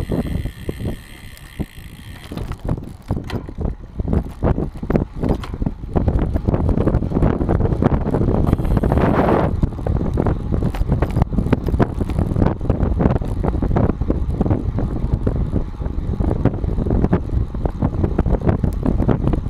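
Bicycle ride picked up by a camera mounted under the saddle: constant irregular rattling and knocking from road vibration through the mount, with tyre and wind noise on the microphone.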